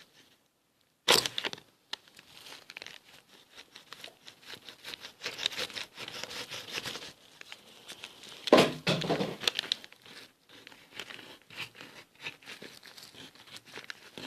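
Knife cutting through the plastic barrel of a correction pen: irregular crackling and scraping. There is a sharp loud crack about a second in and another near the middle.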